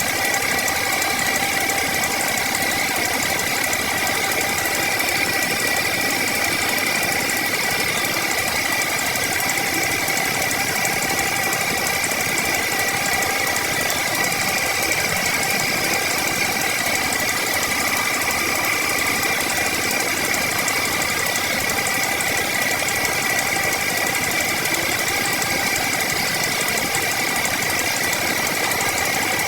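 A power woodworking tool running steadily under a constant motor hum, with a steady high whine.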